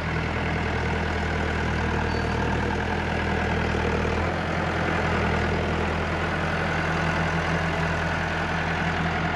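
Diesel tractor engines running steadily as a Massey Ferguson front-loader tractor works its bucket, loading manure into a spreader trailer. The engine note drops a little about four seconds in.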